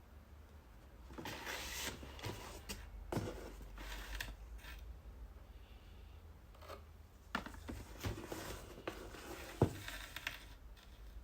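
Cosmetics packaging being handled and opened: irregular rustling and scraping with several sharp clicks and taps, the loudest tap coming about two thirds of the way through.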